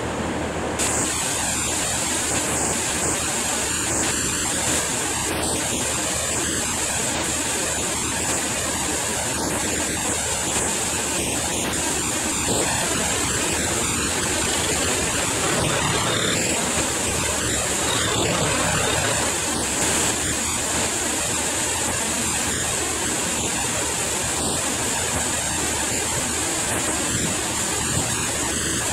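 Farm machinery running steadily at work: a continuous rushing drone with a low engine hum underneath and a high hiss that comes in just under a second in.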